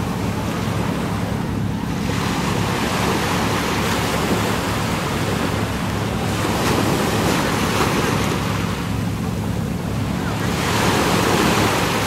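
Small sea waves washing onto a sandy beach, the surf swelling and easing a couple of times, with some wind on the microphone.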